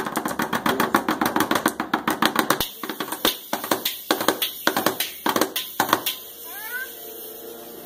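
Drumsticks on a child's toy drum kit: a fast roll of rapid hits for the first two and a half seconds, then about six separate strikes about half a second apart.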